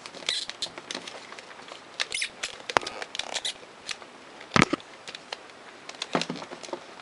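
Hard plastic action figure being handled: irregular clicks, taps and rattles of its plastic parts and joints, with a louder knock about four and a half seconds in.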